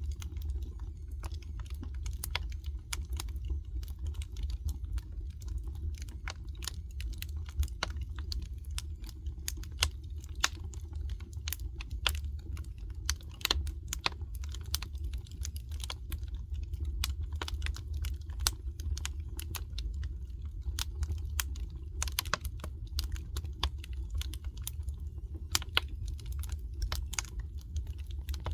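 Wood fire crackling: irregular sharp snaps and pops from burning logs over a steady low rumble.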